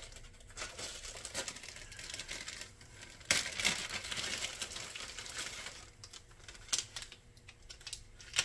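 Rustling and crinkling with scattered clicks as small parts and packaging are handled, loudest about three seconds in, with a sharp click near the end.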